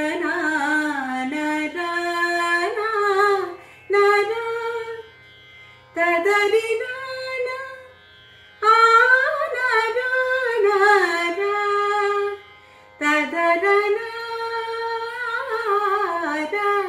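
A woman singing a Carnatic alapana in raga Mohanakalyani on wordless syllables. Her voice glides and ornaments between notes in phrases of one to four seconds, with short pauses between them, over a faint steady drone.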